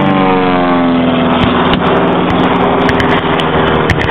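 An engine running with a steady, even pitch after dropping in revs over the first second or so. Scattered sharp cracks sound over it.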